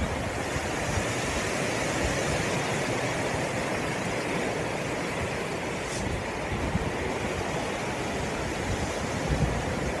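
Snowstorm wind rushing steadily through trees, with gusts buffeting the microphone.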